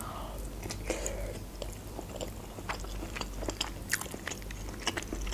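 Close-miked chewing of a mouthful of broccoli: irregular short crunches and clicks.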